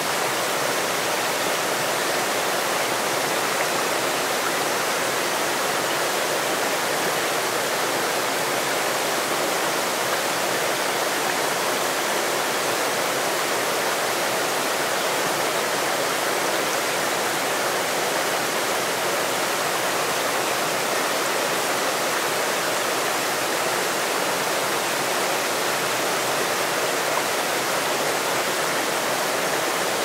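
A small waterfall, about 4 metres high, rushing steadily into a wide plunge pool with a plentiful flow.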